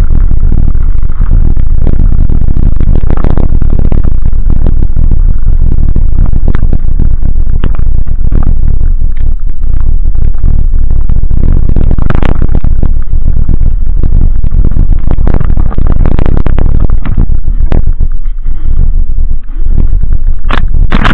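Wind buffeting a scooter-mounted camera's microphone, loud and overloaded, with constant rattling and knocks as a Dualtron Ultra electric scooter rides fast over a rough gravel and dirt trail.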